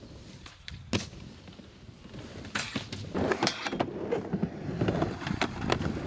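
Skateboard rolling on a plywood miniramp, with a sharp clack about a second in and then the louder rumble of the wheels and repeated clacks of the board and trucks against the ramp and its coping.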